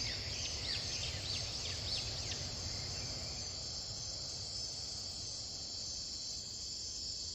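Steady high-pitched chorus of insects, with a few short falling chirps over it in the first two seconds or so.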